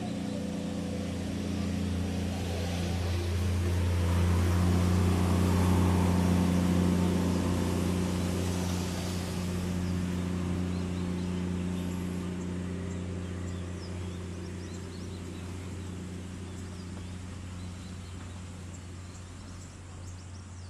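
Sumitomo excavator's diesel engine running steadily with a low, even drone, growing louder a few seconds in and easing off again toward the end.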